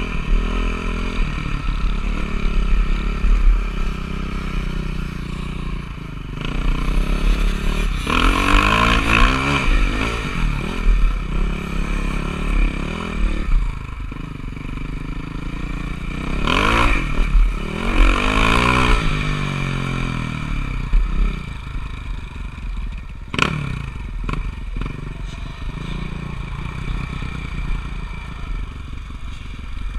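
Motocross dirt-bike engines running, swelling and falling twice as bikes rev hard, about eight seconds in and again about sixteen seconds in. A single sharp click sounds near the end.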